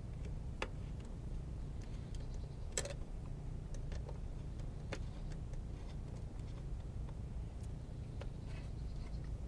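Scattered small clicks and taps of hand work fitting wiring to a battery terminal, the sharpest about three seconds in, over a steady low hum.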